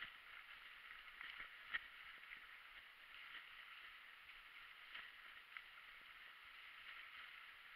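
Faint rolling noise of a fat-tyred mountain bike riding over a wet, rocky trail, with light clicks and rattles scattered through it; the sharpest click comes a little under two seconds in.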